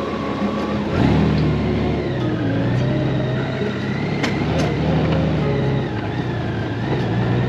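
Honda Gold Wing's flat-six engine pulling away from a stop: its note steps up sharply about a second in, then runs steadily under light acceleration.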